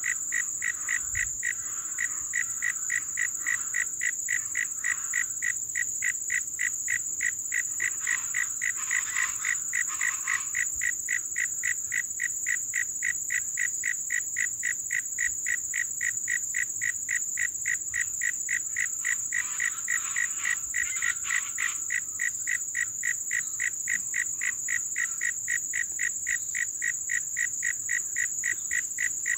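Pantanal wetland soundscape: a frog chorus pulsing in a fast, even rhythm over a continuous high-pitched insect drone. Louder, irregular animal calls break in twice.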